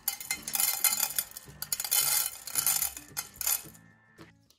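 Dry kibble dispensed by a DOKOO 15L automatic pet feeder, pouring and rattling into its stainless steel bowl in several bursts that stop about three and a half seconds in.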